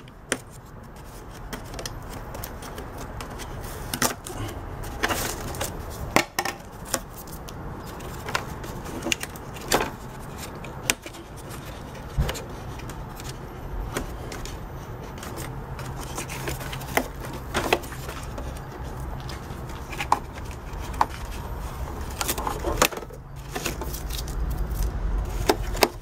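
Hands handling the plastic housing of a Hoover upright vacuum cleaner laid on its back: scattered knocks, taps and rubbing of plastic parts, over a low steady hum.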